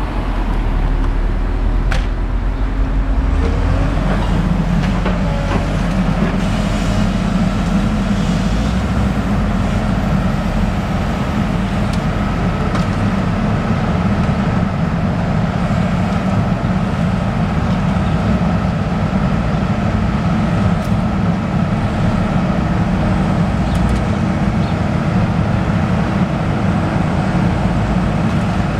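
A heavy machine's diesel engine running steadily, with a faint steady whine from about the middle on.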